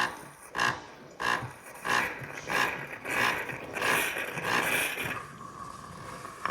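Latte coffee machine running its milk-system rinse cycle, hot water sputtering through the milk nozzle in rough pulses about one and a half times a second, evening out into a steadier rush near the end.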